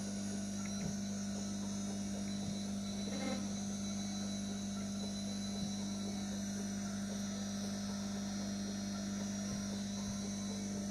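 Steady electrical hum with a few faint, scattered clicks.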